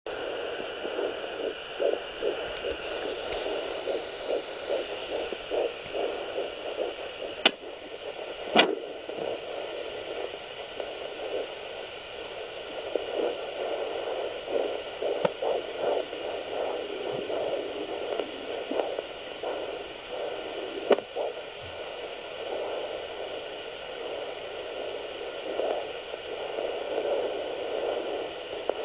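An unborn baby's heartbeat picked up by a handheld fetal doppler: rhythmic pulsing over a steady hiss. A few sharp clicks break in, two about seven and eight seconds in and one past the twenty-second mark.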